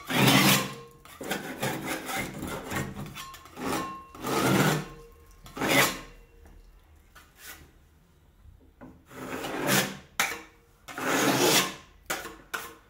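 A hand scraper rasping against a wall surface in about six short strokes with pauses between, typical of scraping off flaking paint before repainting.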